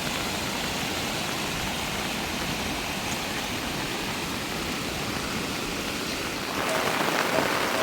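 Heavy rain falling, a steady hiss that gets a little louder about six and a half seconds in.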